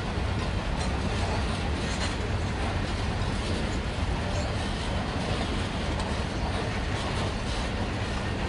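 Grain hopper wagons of a long freight train rolling past: a steady rumble of steel wheels on rail, with occasional faint clicks.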